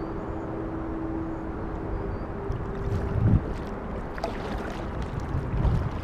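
Kayak being paddled, with water splashing and lapping and wind buffeting the microphone; two low thumps come from the paddle or hull, about a third of the way in and again near the end.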